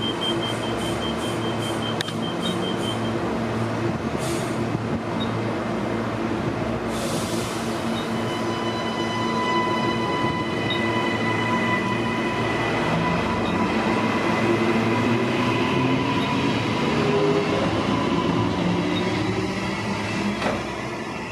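A Queensland Rail NGR electric multiple-unit train pulling out of the platform close by: a high steady warning tone sounds for the first few seconds, then its traction motors whine with several steady tones and a low hum that rises in pitch as it gathers speed, over the rumble of wheels on rail.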